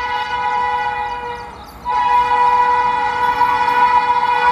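WAP-5 electric locomotive's air horn sounding a long, steady chord. It fades about a second and a half in, then comes back louder and holds.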